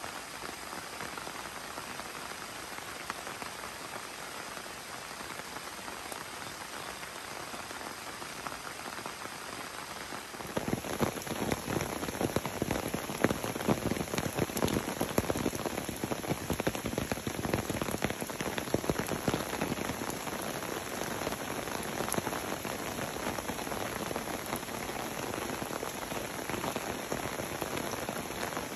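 Steady rain falling. About ten seconds in it becomes louder and closer, with many separate drops striking one after another.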